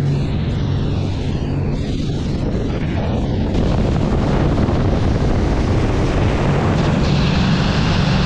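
Twin-engine Sea Ray 400 Sundancer cruiser running at speed: a steady low engine drone under the rush of wake, spray and wind. About three and a half seconds in, the rush of water and wind grows louder.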